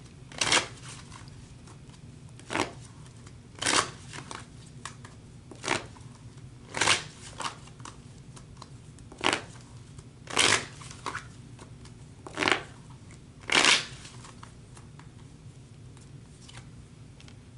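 A deck of tarot cards being shuffled by hand: about nine short papery card strokes, one every second or two, fading to a few faint ones after about fourteen seconds.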